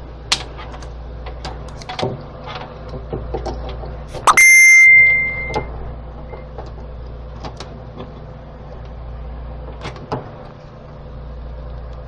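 Scattered clicks, taps and scrapes of a knife prying at the plastic housing of a Petmate low-voltage fountain pump, over a steady low hum. About four seconds in there is a very loud short burst followed by a high steady beep lasting about a second.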